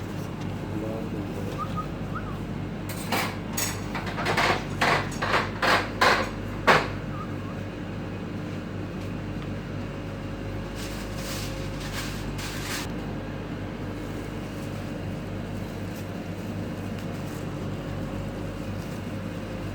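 Cooking utensils striking, with about seven sharp knocks in quick succession a few seconds in and a few fainter ones later, over a steady mechanical hum.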